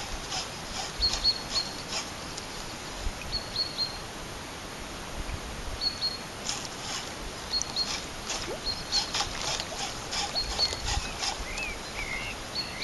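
A small bird calling, with short high chirps every second or two and a couple of curling calls near the end, over faint irregular ticks and soft knocks.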